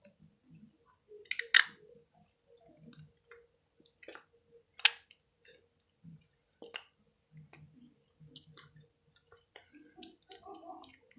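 Slime and its plastic containers being handled: scattered sharp clicks and small pops, the loudest about one and a half seconds in and again near five seconds, with faint soft squishes between.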